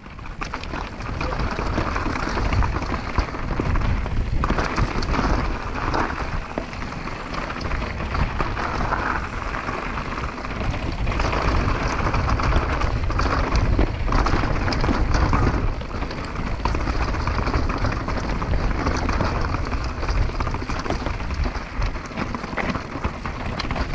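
Wind rushing over the microphone of a downhill mountain bike on a fast trail descent, with tyres running over dirt and gravel and the bike clattering over bumps in many short rattles.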